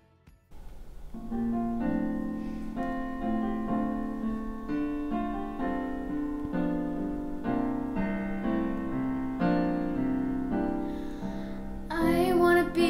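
Piano accompaniment starting about half a second in, playing repeated chords in a steady pulse as a song's introduction. A girl's singing voice comes in near the end.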